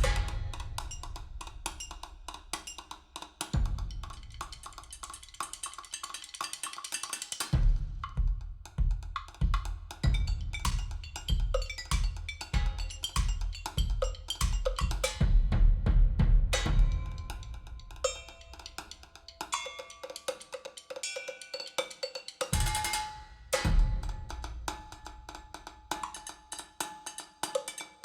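Percussion-heavy music with drum kit, bass drum and snare hits, played back through a pair of Elfton Vegas II oak loudspeakers and picked up by stereo microphones in the room.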